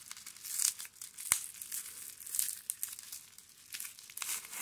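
Bubble wrap crinkling and tearing in irregular bursts as it is pulled off a wrapped bundle by hand, with one sharp click just over a second in.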